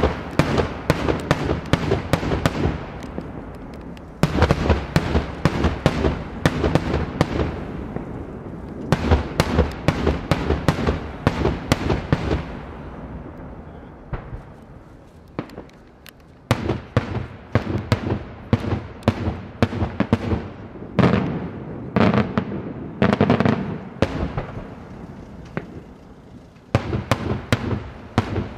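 Daytime aerial fireworks by La Tirrena Fireworks: rapid volleys of loud bangs from shells bursting overhead, in several rounds separated by brief lulls, the longest about halfway through.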